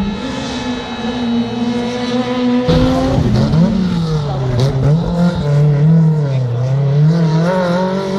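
Rally car engine held at high revs as the car approaches. After a sudden change about three seconds in, it revs up and down repeatedly as a rally car slides through a hairpin.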